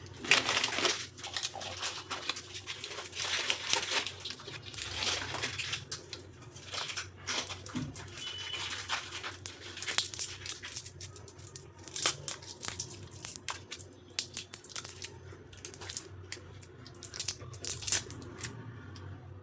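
Candy and chocolate wrappers being torn open and crinkled by hand: irregular rustling and crackling of plastic and foil packaging, with a few sharper tears, dying away near the end.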